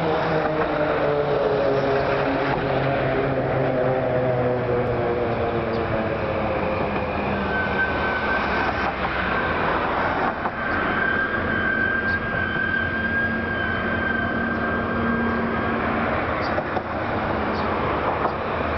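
Motor vehicle engine noise: an engine's pitch falls over the first few seconds as it passes or slows, then settles into a steady drone with a thin high whine through the middle.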